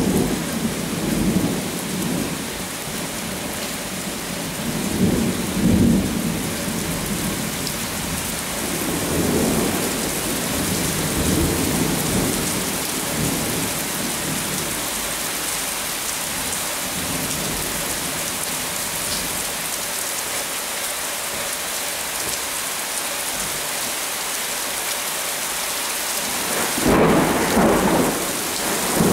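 Heavy rain pouring down steadily, with low rumbles swelling up several times, the strongest near the start and near the end.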